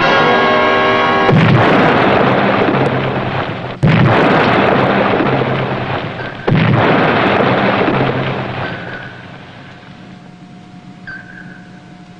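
Three depth-charge explosions about two and a half seconds apart, each a sudden loud blast that dies away slowly, cutting off the dramatic music about a second in.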